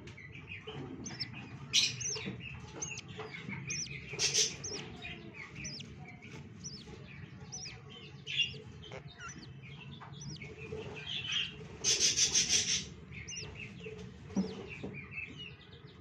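Budgerigars chirping and chattering: many short, quick chirps throughout, with a loud, rapid burst of harsh chatter about twelve seconds in.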